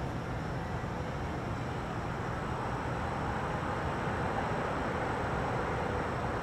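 Steady low rumble of an approaching freight train led by GE Evolution Series diesel-electric locomotives, slowly growing louder.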